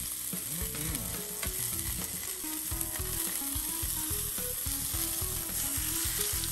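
Beef searing in hot oil and butter in a cast iron skillet: a steady sizzle as the piece is held on its edge with tongs to brown that side.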